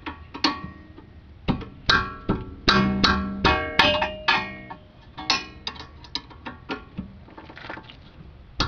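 Plucked guitar music: a run of single picked notes and chords, each ringing out and fading.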